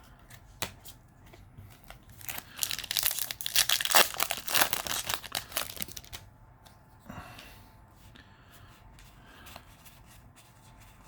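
Foil wrapper of a Yu-Gi-Oh! trading-card booster pack being torn open and crinkled, loudest for about four seconds from a couple of seconds in, then fainter handling sounds.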